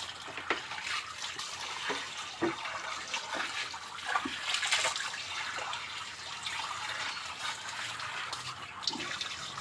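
Water running and splashing, with scattered small knocks.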